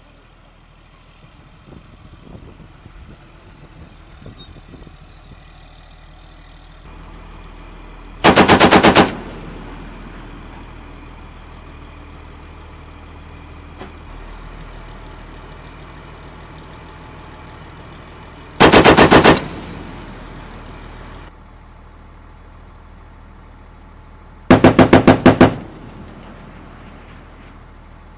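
Three short bursts of automatic fire from a heavy machine gun on an armoured vehicle's remote weapon station, each under a second of rapid shots, roughly ten and six seconds apart. Between bursts the vehicle's engine idles with a steady low hum.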